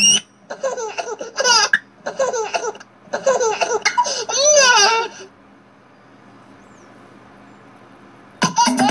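High-pitched laughing in several bursts, stopping about five seconds in. A faint steady hiss follows, and loud voices come back just before the end.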